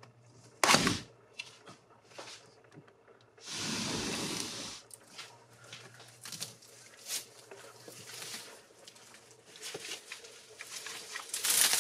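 A window being opened: a sharp click about a second in, then a scraping slide lasting about a second. After that come scattered rustles and snaps of a bull elk tearing at leafy branches just outside the open window, with a louder rustle near the end.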